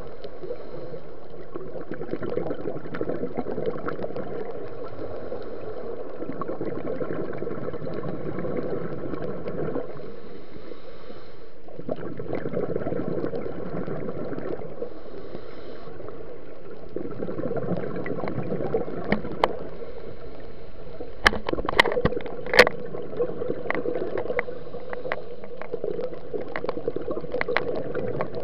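Scuba diver's regulator breathing recorded underwater: long stretches of bubbling exhalation broken by short quieter pauses. Sharp clicks and knocks come in over the last third.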